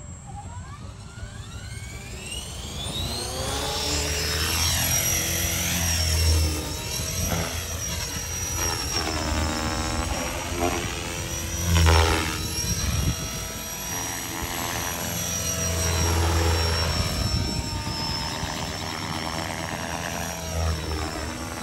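Align 500-size electric RC helicopter on a 6S battery. Its rotor spools up with a rising whine over the first few seconds, then it flies aerobatics with a high, steady motor-and-gear whine and rotor noise that swells and fades as it passes. The rotor noise is loudest about twelve seconds in.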